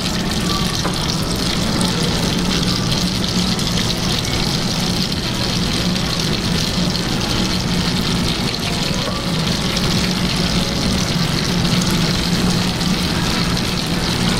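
Tabletop deep fryer running steadily: a continuous sizzling hiss of skewers frying in hot oil over the low hum of its extractor fan.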